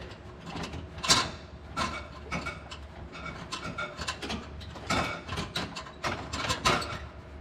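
Irregular clicks, knocks and scraping of hand tools and plastic underbody cover fasteners being worked loose under a truck.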